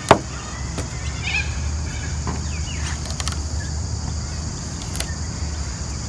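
A sharp slap as a freshly scaled mullet is flipped over onto wooden deck boards, followed by a few faint knocks and scrapes of a filleting knife working along the fish, over a steady low rumble.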